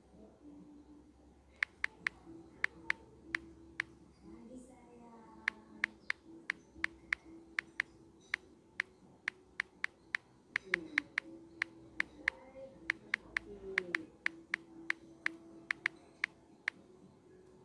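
Sharp, irregular key clicks of typing, about two to three a second with a brief pause early on, over faint background music.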